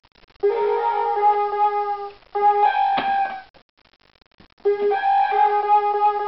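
Keyboard playing held, flute-like notes in three short phrases with brief silent pauses between them, and a sharp click about three seconds in.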